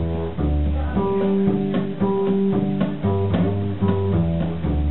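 Acoustic guitar and plucked upright double bass playing an instrumental passage of an old-time folk song, with a walking bass line under the guitar.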